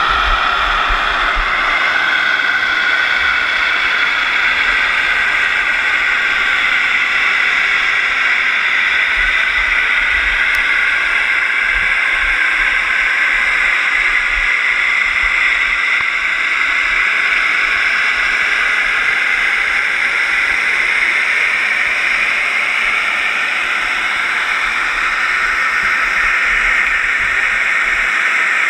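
Steady hissing rush of water past a GoPro's waterproof housing as it is towed underwater on a scallop dredge, with a faint whine drifting slowly in pitch.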